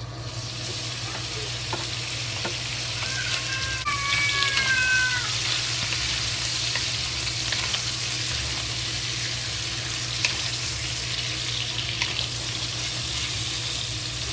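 Pork pieces sizzling in hot vegetable oil in a pot, with a few sharp clicks of stirring. A brief high squeak sounds about four seconds in.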